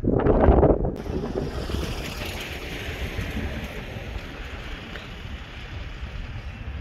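Wind buffeting the microphone: heavy low rumbling gusts for about the first second, then a steadier, lighter wind hiss.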